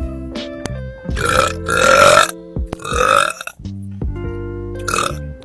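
A woman burping loudly three times in quick succession, then once more briefly near the end, over background music with steady held notes.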